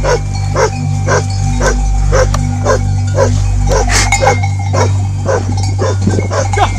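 Anatolian shepherd guardian dogs barking in a steady, rapid run of about two barks a second: alarm barking at an intruder approaching the flock, here a man disguised as a wolf. Steady background music lies underneath.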